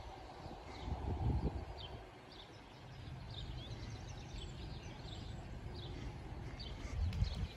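Small birds chirping in short, high calls over a low outdoor rumble that swells about a second in and again near the end.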